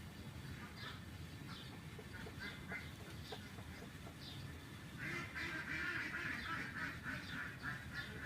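Ducks calling: scattered short, high calls, then a louder, denser run of rapid calls starting about five seconds in.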